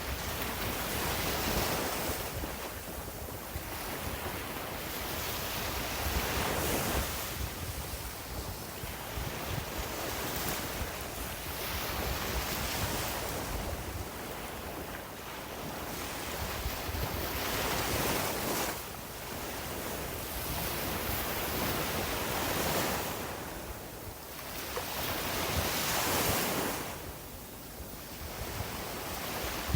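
Sea waves breaking and washing up a beach, the surf noise swelling and falling back every few seconds.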